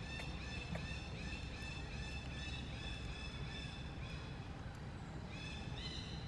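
Rapidly repeated high-pitched animal calls, a short note two or three times a second that drops away briefly and comes back more strongly near the end, over a steady low rumble.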